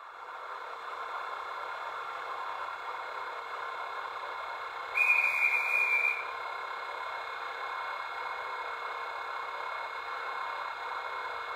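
Sound decoder of a standing H0 model electric locomotive: a steady electric hum and hiss, with a brief high whistle-like tone about five seconds in.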